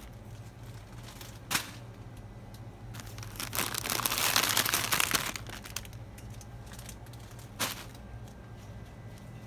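Plastic packaging crinkling as it is handled, loudest for a couple of seconds in the middle, with two short sharp clicks and a steady low hum underneath.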